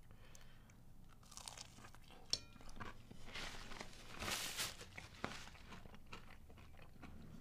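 Faint chewing of a breaded boneless chicken bite, with a few sharp clicks and a soft paper-napkin rustle about four seconds in.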